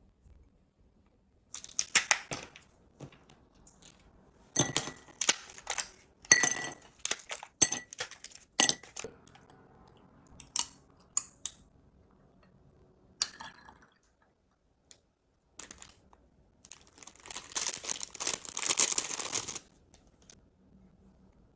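Scattered clicks, clinks and crinkling from small household objects being handled, with a longer stretch of rustling near the end.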